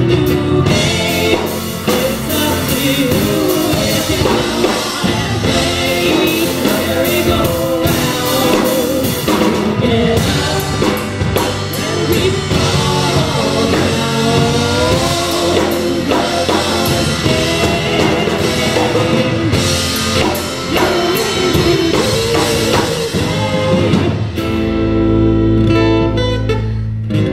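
Live band playing: a woman singing lead over strummed acoustic guitar and drum kit, with a second woman singing backing vocals. Near the end the drums stop and the band holds a final chord that rings on.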